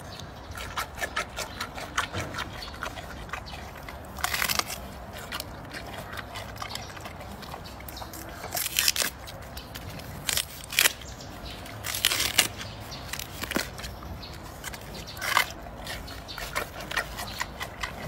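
Giant panda cub chewing and snapping fresh bamboo: loud cracking crunches every few seconds, with small crackles and clicks of chewing in between.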